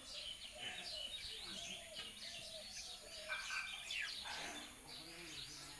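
Several small birds chirping and calling at once, a steady scatter of quick high chirps and short falling notes.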